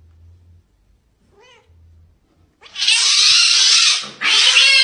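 Domestic cat hissing, defensive at a hand touching its chin and mouth: a faint short meow, then two loud hisses about three seconds in, the second mixed with a yowl.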